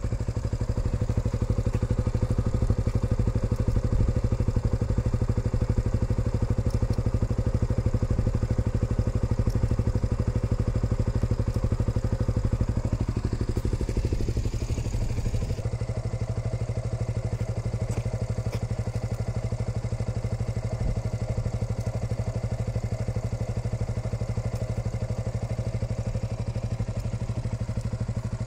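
KTM Duke 125's single-cylinder four-stroke engine idling steadily through an Akrapovic slip-on exhaust. The sound changes slightly and gets a little quieter about halfway through.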